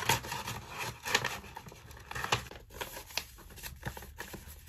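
Yellow padded mailer envelope crinkling and rustling as items are pushed inside it, in irregular crinkles and rustles with small clicks, busiest in the first half.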